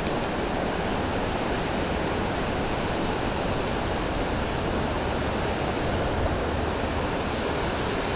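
Steady rush of water pouring over a creek waterfall.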